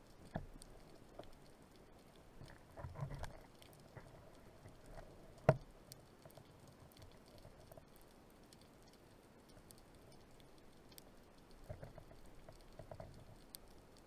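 Faint underwater ambience picked up by a camera under the sea: a scattered crackle of small ticks, a few brief soft rustling bursts, and one sharp click about five and a half seconds in.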